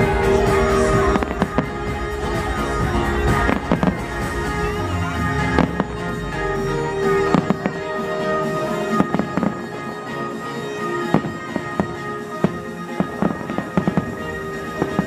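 Aerial fireworks bursting in irregular sharp bangs, with a quicker run of them near the end, over the show's music.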